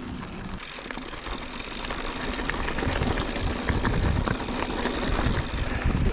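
Motobecane HAL Boost Eagle mountain bike climbing a hill of loose rock: tyres crunching and the bike rattling and clicking over the stones, getting louder over the first few seconds.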